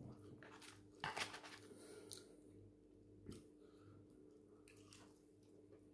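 Faint eating sounds: chewing and handling of crispy fried chicken wings, with a brief louder burst about a second in and a few soft clicks, over a faint steady hum.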